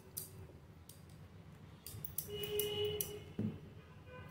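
Wooden rolling pin rolling thin dough on a stone countertop, a low rumble with a few light clicks. A brief faint tone sounds about two and a half seconds in.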